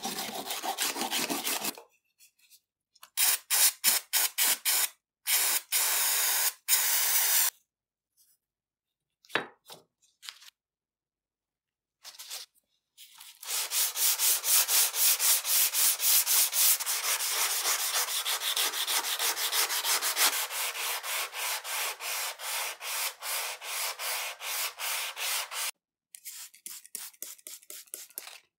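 Brush scrubbing an old steel chopper blade with fast back-and-forth strokes. It comes in several short bursts broken by sudden silences, then one long run of about twelve seconds in the middle, and fainter strokes near the end.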